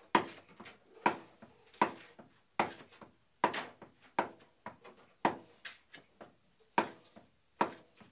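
Wooden mallet striking a froe driven into a block of wood to split off shingles: a steady run of sharp knocks, a little under one a second, with lighter taps between.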